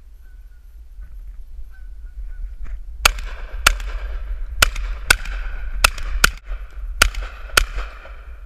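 Geese honking in a flock overhead, then eight shotgun shots in quick succession starting about three seconds in, with the geese still calling between the shots.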